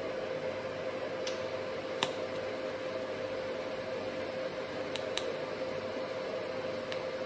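TIG welding on mild steel: the quiet arc tack-welding a steel fitting, heard as a steady hiss over a constant hum, with a few short sharp ticks.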